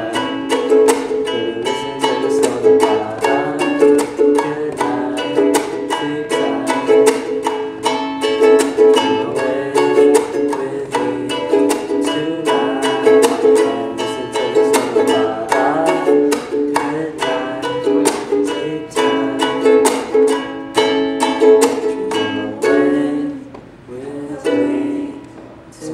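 Ukulele being strummed in a steady chord rhythm, with many quick strokes, thinning out and dropping away briefly near the end.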